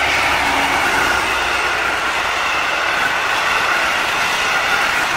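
V/Line N-class diesel locomotive and its passenger carriages passing close by: a loud, steady rolling of wheels on the rails with a faint high ringing tone.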